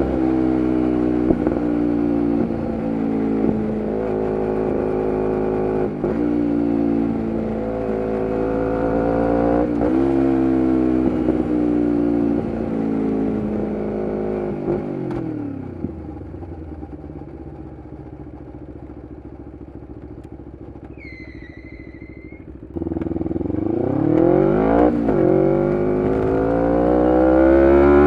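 A Kawasaki Ninja 250R's parallel-twin engine on a full Graves race exhaust is being ridden. Its revs rise and fall through several quick gear changes, then it drops to a low, quieter idle about fifteen seconds in. About seven seconds later it suddenly revs back up hard, pitch climbing, through the closing seconds.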